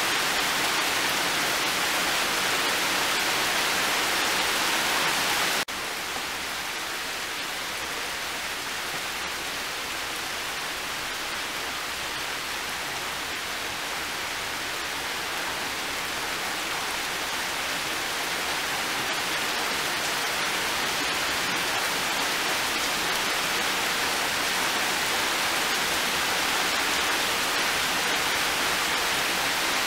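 Heavy rain pouring steadily. About five seconds in the hiss drops abruptly to a lighter level, then slowly builds back up to heavy rain by the end.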